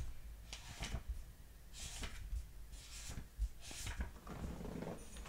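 Scattered soft knocks and rustles of handling, one every half-second to second, over a low rumble.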